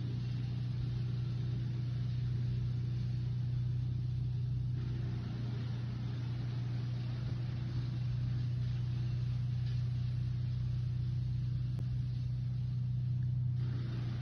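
Engine of wood-cutting machinery running at a constant speed, a steady unchanging drone.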